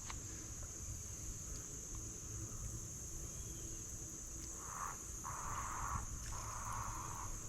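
Insects, crickets or similar, droning as one steady high-pitched buzz. From about five seconds in, three short bursts of lower hiss come and go.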